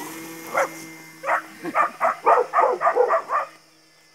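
A dog barking repeatedly: a couple of single barks, then a quick run of about eight barks that stops near the end. Under the barks is the steady hum of a model airplane's motor at takeoff power.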